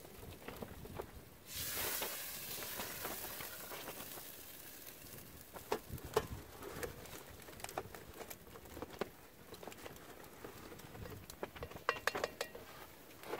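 Campfire cooking pot of pork and beans sizzling, with a hiss that starts suddenly about a second and a half in and fades over a few seconds. It is followed by scattered clicks and scrapes of a utensil against the pot as the beans are dished into a bowl.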